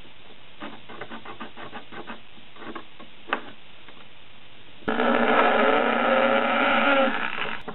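Light taps and rubbing of parts being handled, then about five seconds in a cordless drill starts and runs steadily for nearly three seconds before stopping, working a screw hole in a plastic motor mount on a wooden frame.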